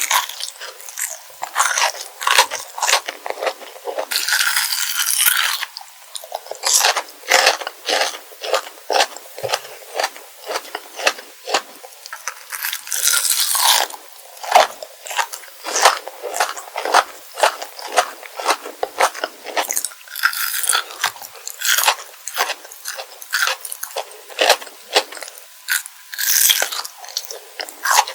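Close-miked crunching and chewing of kohakutou, crystal jelly candy with a crisp sugar crust: a steady run of short crisp crunches, about two a second, broken four times by a longer, denser rasping crunch.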